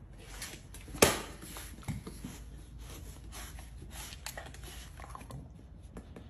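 A dog moving about on a tiled patio, with scattered light clicks and scrapes of its paws and claws against the glass door and its track, and one sharp knock about a second in.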